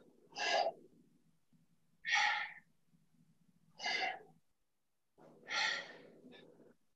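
A man's sharp, forceful exhalations, four of them about every second and a half to two seconds, one with each kettlebell squat-and-press rep.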